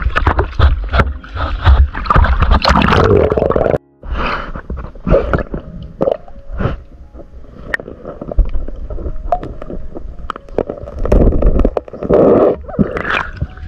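Water sloshing and splashing around a wading spearfisherman for about four seconds, then an abrupt cut. After the cut comes muffled underwater gurgling, rumbling and scattered knocks from a camera held underwater while a caught fish is gripped by hand.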